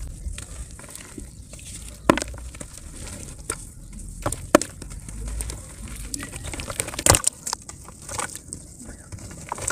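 Dry mud chunks crumbling and breaking in the hands over a tub of muddy water: gritty crackling with sharp snaps about two, four and a half, and seven seconds in.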